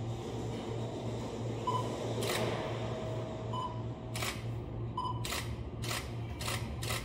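A JR 205 series electric train standing at the platform, its roof air-conditioning units and equipment giving a steady pulsing hum. Over it come a few short high beeps and, from about two seconds in, several sharp hissing bursts, most of them in the second half.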